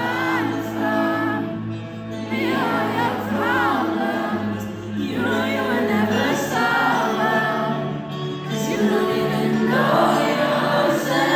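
Female pop singer singing live into a handheld microphone over amplified backing music with sustained low notes, a melodic vocal line running throughout.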